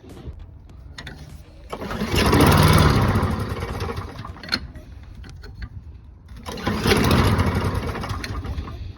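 Lawn-Boy 20-inch self-propelled mower engine pulled over twice. Each time it catches and runs for a couple of seconds, then fades out and dies, the sign of a mower that won't keep running.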